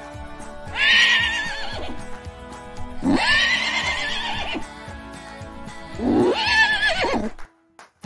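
A horse whinnying three times, each call a quavering neigh lasting a second or more, over light background music.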